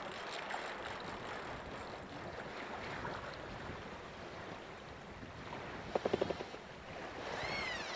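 Wind buffeting the microphone over choppy lake water slapping against a boat, a steady rushing noise. About six seconds in comes a quick run of a few sharp clicks, and near the end a short whistling tone that bends up and down in pitch.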